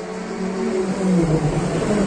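R5 rally car's turbocharged four-cylinder engine approaching at full throttle, growing steadily louder, its note rising, dropping once at about the halfway point and rising again.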